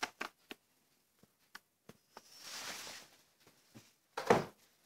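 Clear plastic case of markers being handled and set down on a cloth: a few light clicks, a soft rustle about two and a half seconds in, and a louder knock near the end.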